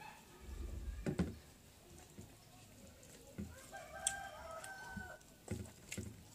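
Fingers mixing rice on a plate with soft clicks and knocks, and a drawn-out bird call of about a second and a half beginning near four seconds in.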